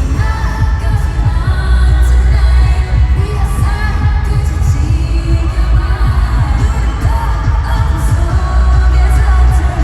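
K-pop girl group singing live over a loud pop backing track with heavy bass.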